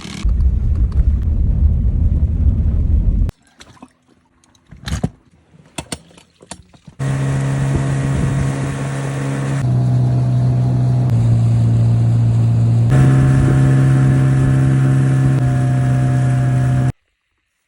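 Yamaha outboard boat motor running at a steady speed, a loud even drone whose pitch jumps abruptly a few times before it cuts off near the end. Before it, a loud low rumble and then a quieter stretch of scattered clicks.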